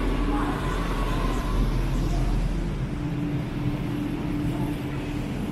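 Ambience of an indoor railway-station concourse: a steady low rumble and hum under a faint wash of background noise.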